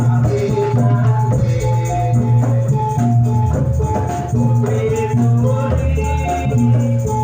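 Javanese Jathilan gamelan music played loud over a sound system: a repeating melody of short held metallic notes over a deep sustained bass.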